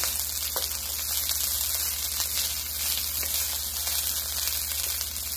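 Cooked long-grain white rice frying in olive oil in a non-stick wok: a steady sizzle, with a wooden spatula stirring and scraping through the rice now and then.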